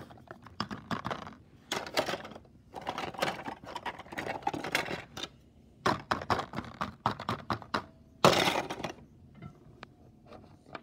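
Quick clicks, taps and rustling scrapes of small plastic toy figures and a ball being handled inside a cardboard box, with a brief louder burst of noise about eight seconds in.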